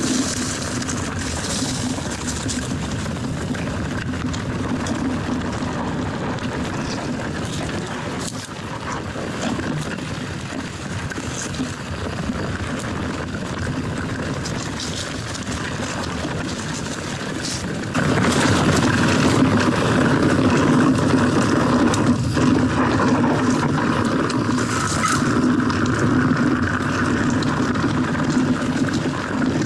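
Commencal Meta TR mountain bike riding a dirt trail: steady wind rush on the camera and knobby tyres rolling over dirt, with occasional knocks and rattles from bumps. A little past halfway the noise steps up suddenly and stays louder.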